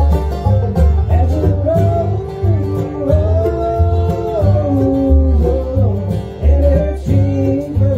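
A live bluegrass band playing: upright bass, banjo, mandolin and acoustic guitar, with the bass keeping a steady beat under the melody.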